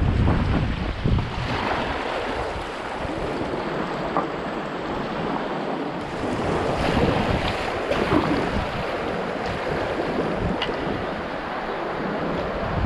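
Fast river water rushing and splashing around a whitewater kayak as it paddles through a rapid, with wind noise on the microphone, strongest near the start.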